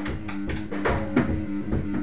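Drum kit played in a steady beat of about five strokes a second, along with sustained low pitched notes from another instrument.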